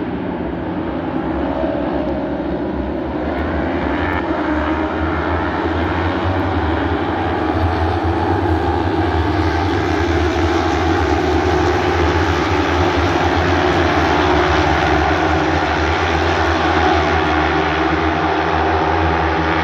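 A pack of superbike racing motorcycles at full throttle, many engines running together in one continuous drone that grows louder over the first half as the pack comes by.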